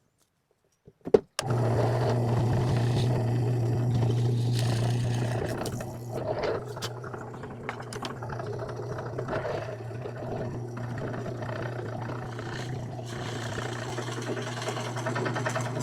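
Drill press switched on with a click about a second in, its motor then running steadily with a low hum, louder for the first few seconds, while it drills starter holes through plywood for a jigsaw blade.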